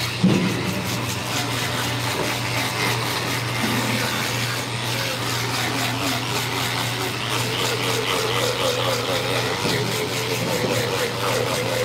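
Electric fish scaler running with a steady motor hum as its rotating metal head scrapes the scales off a whole salmon, with a short knock just after the start.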